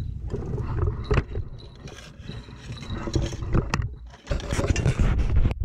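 Wind rumbling unevenly on the microphone aboard a small fishing boat on choppy water, with a few scrapes and knocks from the boat.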